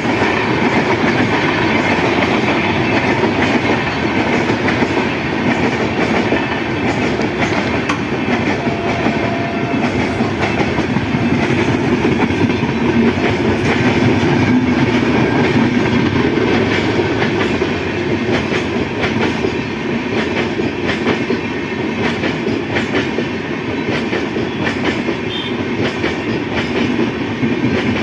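A train running on the rails: a steady, loud rumble of rolling stock with the wheels clicking over the rail joints throughout.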